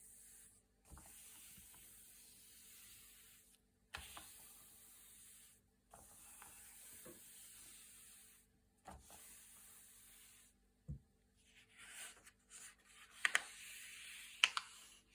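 Thick, glossy paper pages being turned one after another: each turn is a soft sliding rustle that starts with a light snap, about every two to three seconds, with a few sharper crackles of the stiff paper near the end.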